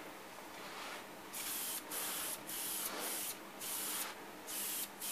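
Prevail aerosol spray gun hissing in several short bursts as it mists thinned green enamel onto a lantern font for the colour coat.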